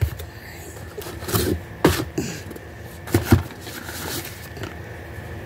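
Small cardboard boxes being handled and shifted inside a cardboard shipping box: a few sharp knocks and scrapes of cardboard on cardboard, the loudest about two and three seconds in.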